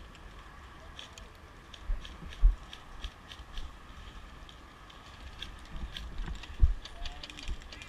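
Movement noise on a body-worn action camera: low thumps from footsteps and gear knocking, the two loudest about two and a half and six and a half seconds in, with faint scattered clicks throughout.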